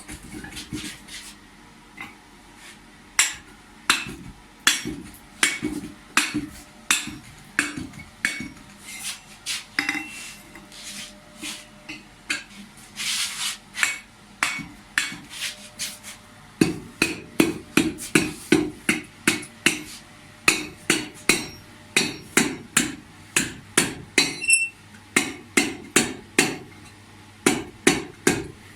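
Hand hammer striking a forge-heated steel pipe over a forming mandrel, flaring its end to take a rake handle. The blows are irregular at first, then settle about halfway through into a steady run of fuller strikes, roughly two a second.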